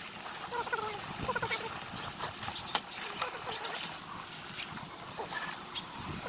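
Garden hose spray nozzle spraying water into a gas grill's cookbox, a steady hiss of spray splashing over the metal burners and flavorizer bars.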